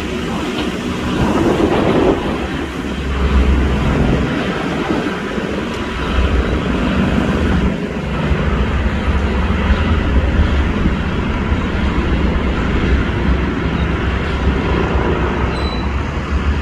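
A train or rail work vehicle running with a steady low rumble and engine hum, swelling a little in the first few seconds.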